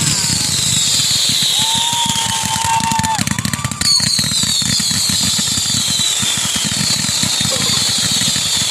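Close fireworks barrage: dense, rapid crackling pops with high whistles that fall in pitch again and again, a short steady whistle about two seconds in, and a sharp burst about four seconds in.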